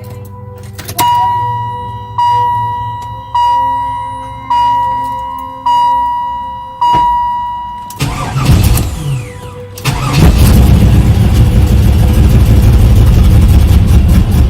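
The car's warning chime rings six times, about once a second, each tone fading away; then, about 8 s in, the starter cranks the 1995 Camaro Z28's LT1 5.7-litre V8, which catches about 10 s in and runs loudly until it stops near the end.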